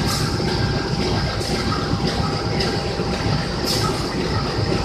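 CC203 diesel-electric locomotive standing with its engine running: a steady low rumble with a faint constant tone, and a short high rushing sound about every second and a quarter.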